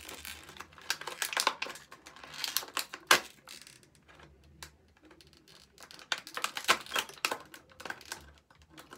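Thin empty plastic water bottle crinkling and crackling as a metal fork saws through it: a run of irregular clicks and scratches, with a sharp click about three seconds in.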